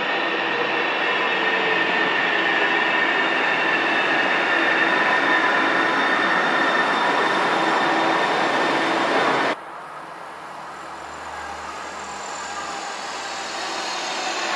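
Sound Transit Link light-rail train arriving at an underground station: rumbling wheel and running noise with several steady whining tones, growing slightly louder, that cuts off suddenly about two-thirds of the way through. A quieter Link train then runs by in the open, growing louder toward the end.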